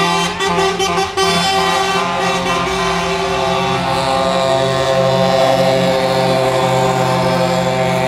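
Truck air horns held in long steady chords as the show trucks pass, the chord changing about four seconds in, over the running of the trucks' diesel engines.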